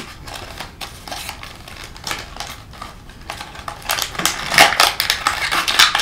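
Small cardboard box being handled and its flaps opened, then louder crinkling of tissue paper from about four seconds in as the tissue-wrapped figure is pulled out.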